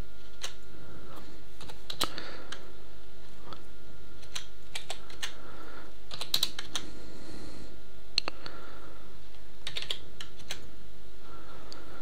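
Computer keyboard keys tapped in short, irregular clusters as numbers are typed in, over a steady faint hum.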